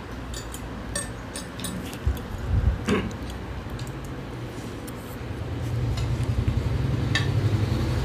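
Forks and spoons clicking and scraping against plates as noodles are eaten quickly, in scattered light clinks. Underneath runs a low rumble that swells briefly about two and a half seconds in and grows louder again in the second half.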